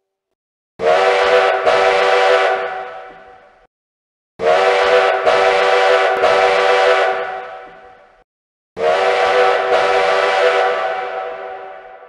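Train whistle blown three times, each a loud blast of several steady tones sounding together. Each blast lasts about two seconds, breaks briefly early on, then dies away with a fading echo.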